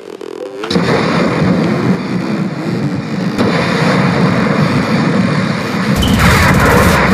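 Loud electric-blast sound effect: a dense, noisy rush that comes in about a second in. A heavier low boom joins near the end.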